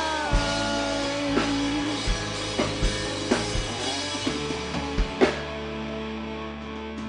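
Live rock band playing an instrumental passage: drum kit with kick drum and cymbal hits, bass and electric guitar, without vocals.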